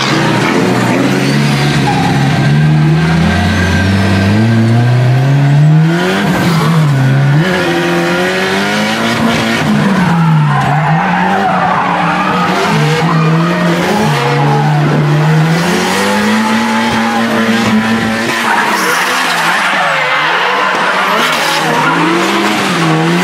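Drift car engine revving hard inside the cabin, its pitch climbing over the first few seconds and then rising and falling again and again as the throttle is worked through the slide, with tyres squealing.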